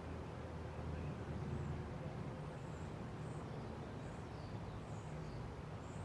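A 1983 Evergo 4P-8CLW four-blade ceiling fan running steadily at speed: a constant low motor hum with an even rush of air.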